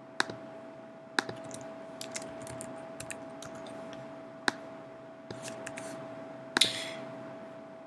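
Computer mouse clicks and keyboard typing: a sharp click just after the start, light keystrokes over the next few seconds and a louder click near the end, over a faint steady hum.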